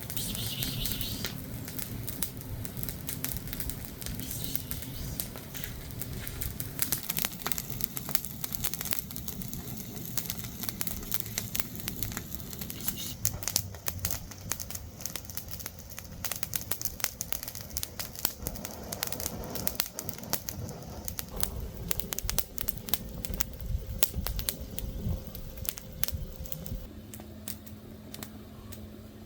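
Wood fire crackling, with irregular sharp snaps and pops throughout. A low steady hum comes in near the end.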